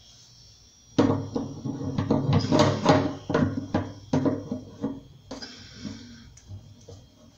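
Slip-joint pliers clicking and knocking against the nut of a kitchen sink's basket-strainer drain valve beneath a stainless steel sink as the nut is gripped and tightened. A quick run of sharp metallic clicks and knocks starts about a second in, then thins to scattered knocks.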